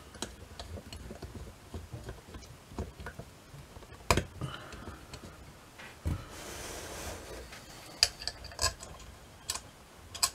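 The brass base and pillar of a W. Würth & Co torsion clock clinking and knocking as they are handled and fitted together: scattered metallic clicks and taps, the loudest about four seconds in and again near eight seconds, with a short rubbing scrape around six seconds in.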